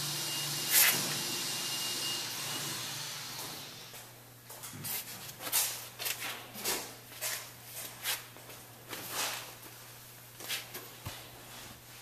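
A steady motor hum with a thin high whine dies away over the first few seconds. It is followed by a run of irregular short clicks and scrapes from hand work on a wooden board.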